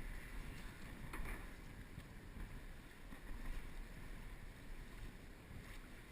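Wind buffeting the microphone as a low, uneven rumble over a steady rush of outdoor noise, with one faint click about a second in.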